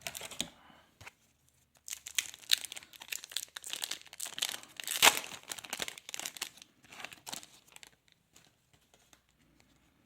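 A trading card pack wrapper being torn open and crinkled by hand, a dense crackling that is loudest in the middle and then thins to a few light ticks.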